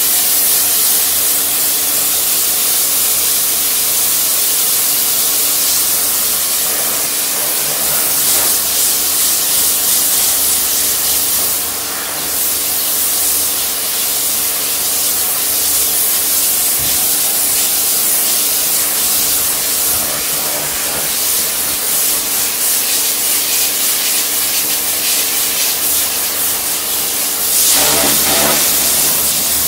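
Kärcher electric pressure washer running, its jet hissing steadily as it sprays a metal-framed garden chair, over the steady hum of the pump motor. The spray sound swells briefly near the end.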